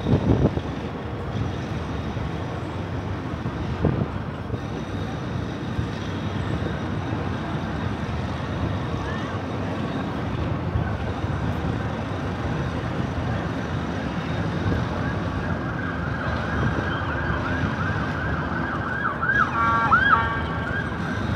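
Steady city street and traffic noise, with an emergency vehicle siren coming in over the last few seconds and sweeping quickly up and down in pitch a few times near the end.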